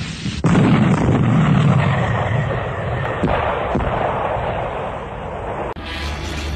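A loud explosion goes off about half a second in, followed by a long, slowly fading rumble. Near the end it cuts abruptly to music.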